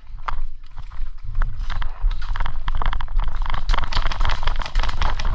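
Fast, irregular clatter and thuds of running footsteps and gear knocking, with heavy rumble of movement against a body-worn microphone, getting denser about a second and a half in.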